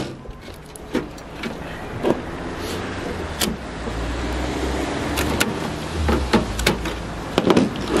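Scattered sharp clicks and snaps of wire snips cutting through a microwave's internal wiring and of parts being handled. Under them is a low rumble that swells through the middle and fades near the end.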